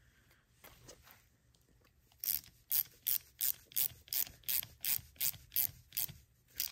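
Small hand ratchet clicking as it turns a grease (Zerk) fitting into a sway bar end link. After about two seconds of faint handling, the clicks come in a steady run of roughly three a second.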